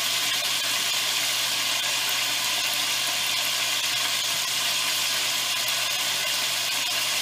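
Beef rouladen browning in hot oil in an enameled cast-iron Dutch oven: a steady sizzle with faint scattered crackles. The heat has just been turned up a little.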